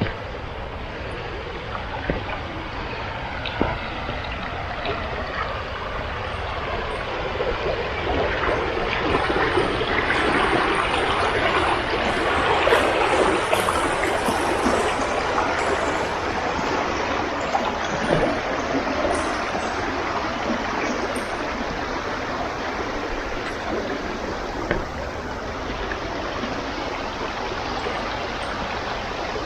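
Water running and trickling in a creek, a steady rush that grows louder about ten seconds in and eases off again after the middle.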